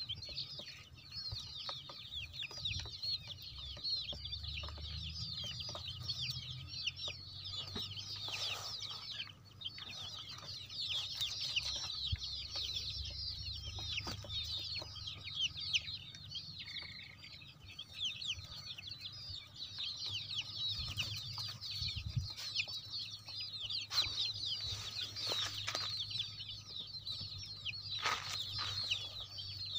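A large flock of young country-breed (desi) chicks peeping constantly, many high, short chirps overlapping.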